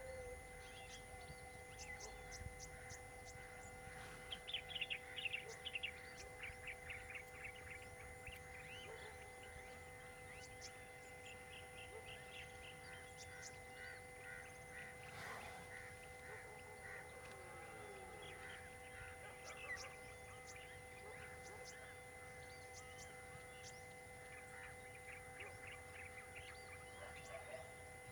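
Faint wild birds chirping and calling, with bursts of quick trilled notes; the busiest stretch is about four to six seconds in. Under them runs a thin, steady high hum.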